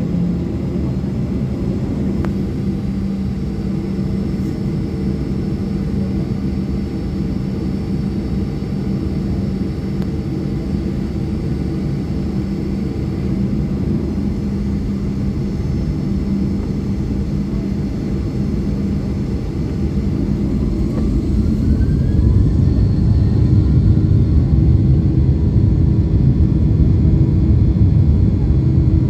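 Boeing 737 jet engines heard from inside the cabin over the wing: a steady hum at low thrust, then about two-thirds of the way in a rising whine as the engines spool up and the low rumble grows louder, the start of takeoff thrust.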